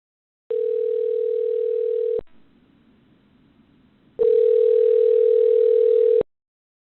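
Telephone ringback tone heard over the line: a steady single-pitched tone sounds twice, about two seconds each, with a pause of about two seconds between. It is the sign of an outgoing call ringing and not yet answered.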